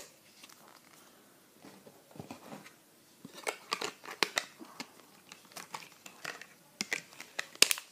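Hands fitting an iPhone into an Otterbox protective case: a run of irregular plastic clicks, creaks and scrapes, with the loudest sharp click near the end.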